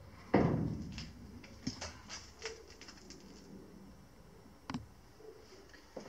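A battery LED work light being handled and set in place up under a car's raised bonnet: one sharp clunk about a third of a second in, then a run of small clicks and taps, and one more tap near the end.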